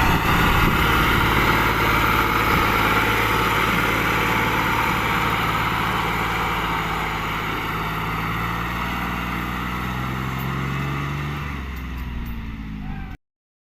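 John Deere 5103 tractor's diesel engine running steadily and growing gradually fainter, with a slight shift in pitch near the end, before the sound cuts off suddenly.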